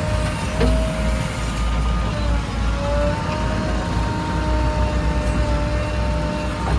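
Heavy diesel machinery engine running steadily under load, a deep rumble with a steady high whine over it.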